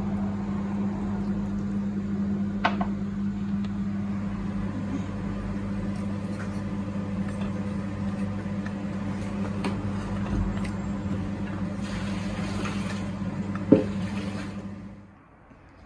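Steady low electric hum of a kitchen appliance motor, cutting off about a second before the end. Near the end a spoon scrapes and stirs in a metal pot of coconut milk, with one sharp knock against the pot.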